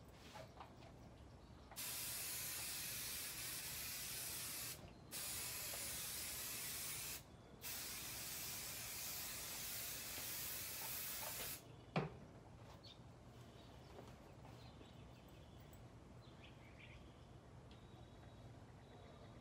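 Aerosol can of quilt-basting spray adhesive spraying in three long hisses of about three, two and four seconds, separated by brief breaks. About a second after the spraying stops comes a single sharp tap.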